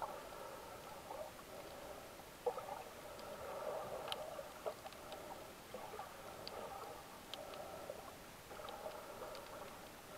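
Muffled underwater water sounds picked up by a camera held under the sea while snorkeling, with scattered small clicks and knocks.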